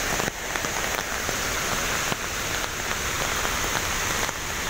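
Steady rain falling on forest foliage, with scattered drops ticking close by.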